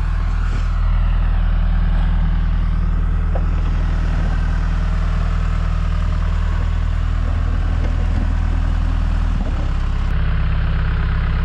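John Deere 310G backhoe's diesel engine running steadily under the operator; its note drops about nine and a half seconds in.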